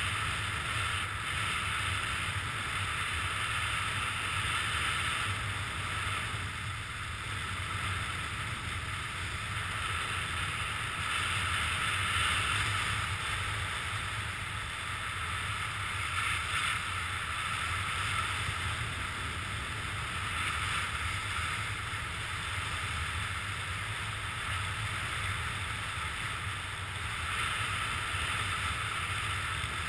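Steady wind noise rushing over a camera's microphone during a descent under a parachute canopy, swelling and easing slightly now and then.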